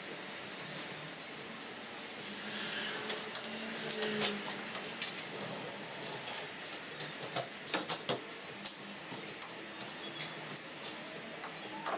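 Rubber window seal being picked and pulled loose from a VW bus side window: a stretch of rubbing and scraping of rubber against glass and metal a few seconds in, then a run of light clicks and taps.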